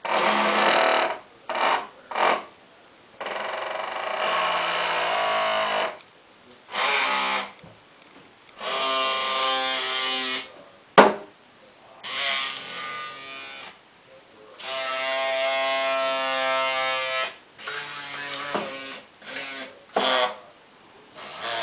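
A single tiny electric motor in a 1/144 scale model S-100 Schnellboot, switched on and off over and over, whining steadily in about a dozen bursts of a fraction of a second to about three seconds each. A sharp click sounds about eleven seconds in.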